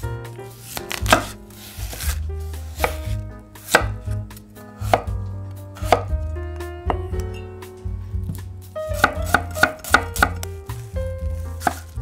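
Kitchen knife cutting raw potato into cubes on a wooden chopping board, the blade knocking on the board about once a second, then a quicker run of chops near the end.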